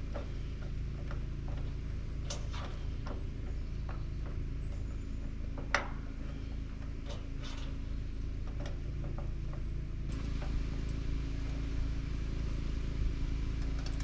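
Scattered light clicks and taps of metal pergola parts being handled and fitted, with one sharper knock about six seconds in, over a steady low hum.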